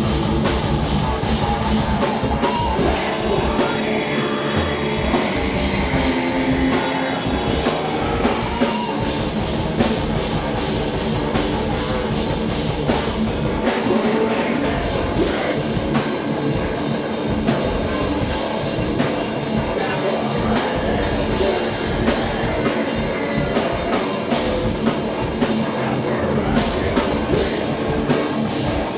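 Live heavy rock band playing loud and without a break: distorted electric guitar and a drum kit.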